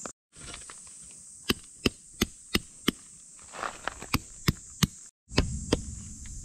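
Hammer driving a metal tent peg into stony ground: a run of sharp, even strikes, about three a second, that breaks off twice briefly. A steady high insect drone runs underneath.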